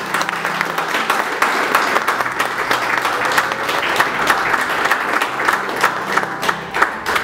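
Guests applauding, a dense run of clapping that goes on steadily throughout.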